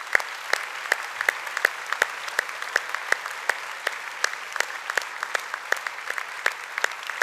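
Audience applauding steadily in a large hall, with many sharp individual hand claps standing out from the mass of clapping.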